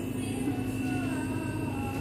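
Background music with held tones and a gently moving melody.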